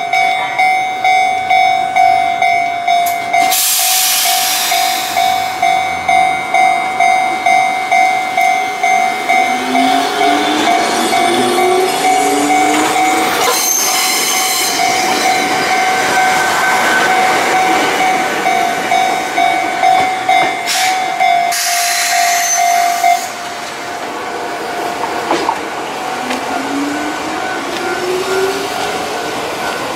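Level-crossing alarm ringing in a fast, steady ding-ding that stops about 23 seconds in. An electric train's motors whine up in pitch as it pulls away, twice, with short bursts of air hiss.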